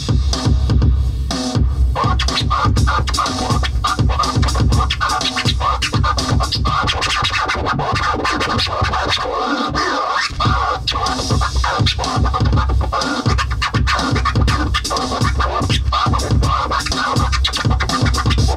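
Electronic beat with a heavy, steady bass line and fast drum-machine hits, played live on a Native Instruments Maschine groovebox, with scratch sounds cut in over it. A brighter mid-range layer joins about two seconds in.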